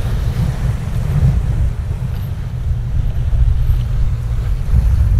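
Wind buffeting the microphone: a low, unsteady rumble.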